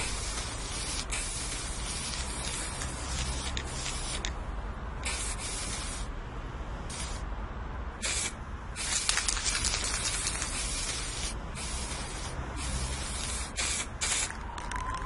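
Aerosol spray paint can spraying in a series of hissing bursts, some long and some short, with brief pauses between them.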